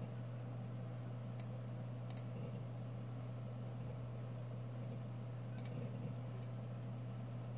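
Three short, sharp computer clicks, one about a second and a half in, one about two seconds in and one about five and a half seconds in, as pages are flipped on screen, over a steady low electrical hum.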